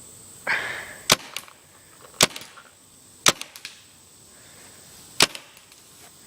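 Tippmann Gryphon paintball marker running on CO2, fired four single shots with sharp cracks about a second apart and a longer gap before the last, as it shoots off its last rounds.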